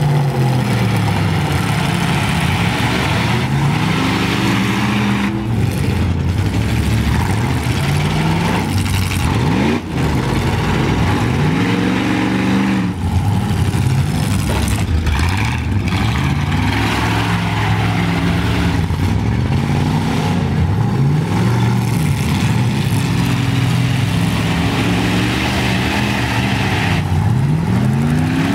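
Demolition derby pickup truck engines revving hard, their pitch climbing and falling again and again as the trucks back up and ram one another.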